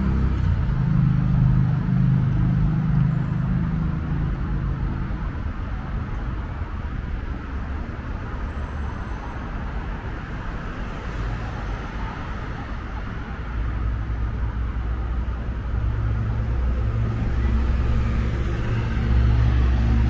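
Road traffic: cars driving past on a multi-lane road, a steady low engine hum and tyre noise that swells as vehicles pass, loudest at the start and again over the last several seconds.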